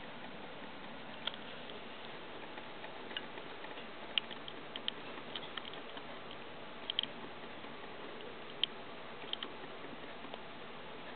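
Wood-shaving bedding crackling with faint, irregular clicks as a Dumeril's boa shifts while swallowing a mouse, over a steady hiss.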